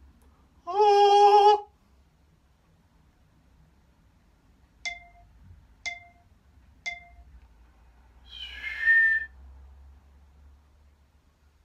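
Home-made sound effects: a loud, steady pitched tone lasting about a second, then three short sharp ticks a second apart, each with a brief ringing tone, then a noisier sound that rises to a high, whistle-like tone.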